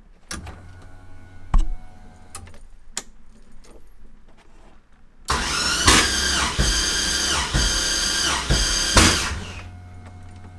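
LS6 V8 cranking slowly and laboriously on its starter for about four seconds without catching. The owner suspects the slow cranking comes from a copper-clad aluminium battery cable, since the starter is new. Before the crank there is a low electrical hum and a sharp click.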